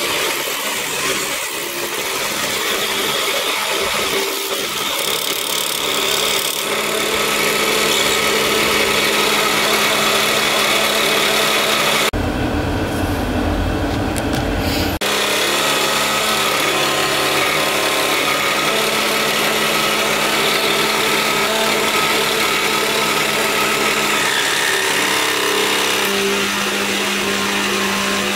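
Small electric motor of a mini 8-in-1 hobby machine running as a table jig saw, the blade cutting thin wood, with a steady hum. About twelve seconds in the sound changes abruptly to a duller, lower noise for about three seconds before the steady running returns.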